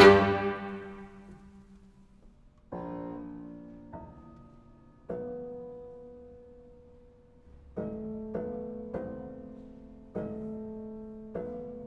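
Chamber music: a loud ensemble chord dies away over the first two seconds, then piano chords are struck singly every second or two, each left to ring and fade.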